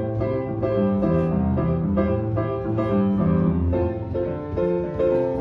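Music with piano.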